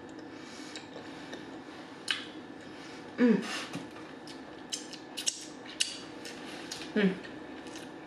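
Close-up eating sounds: wet mouth smacks and clicks from chewing rib meat and licking dry rub off the fingers, with two short voiced "mm" sounds, the louder one about three seconds in. Near the end a small plastic sauce cup clicks as it is picked up from the takeout containers.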